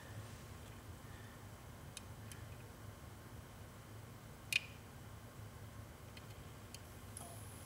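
Faint, sparse metallic ticks of a lock pick working the pins of a CISA six-pin dimple euro profile cylinder, with one sharper click about four and a half seconds in.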